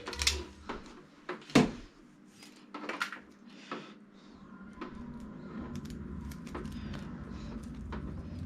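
Clicks and knocks of hands handling cable and fittings, with one sharp knock about a second and a half in. A steady low hum comes in from about four and a half seconds in.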